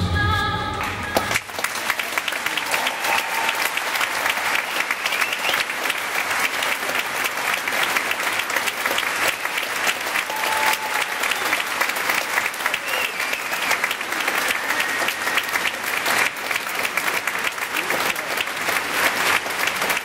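Pop music ends about a second in and a large audience applauds steadily. A few brief high calls rise above the clapping.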